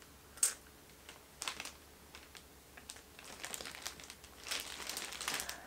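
Clear plastic wrapping around a handbag crinkling as it is handled, in short separate rustles that come thicker near the end.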